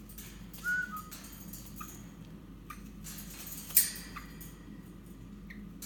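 A short whistled note about a second in, followed at once by a shorter lower one, then a few faint chirps. Just before four seconds in there is a brief noisy rustling burst, the loudest sound here.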